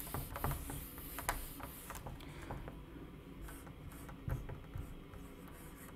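Faint strokes of a dry-erase marker on a whiteboard, with a few light ticks.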